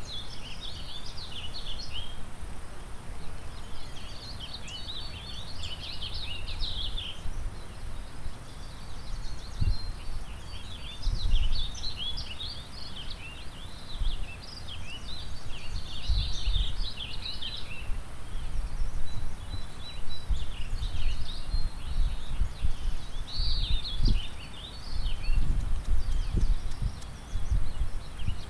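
Songbirds singing quick, high, twittering phrases every few seconds, over the steady rush of a river and wind gusting against the microphone.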